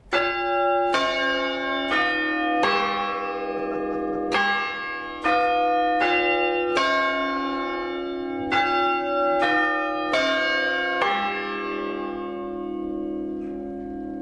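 Church tower bells struck about a dozen times at uneven intervals, several bells of different pitch, each stroke ringing on. After the last stroke, about eleven seconds in, the bells hum and slowly fade.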